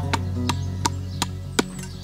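Hand hatchet chopping at a wooden stick: five quick, evenly spaced knocks, about three a second, stopping near the end, over background music.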